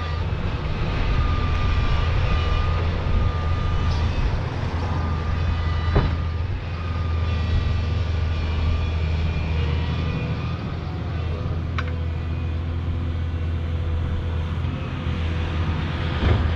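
Volvo tracked excavator's diesel engine running steadily under load, with a wavering whine from the hydraulics as the boom lifts and the bucket swings a load of dirt. A few sharp knocks are heard, and a louder rush of noise comes near the end.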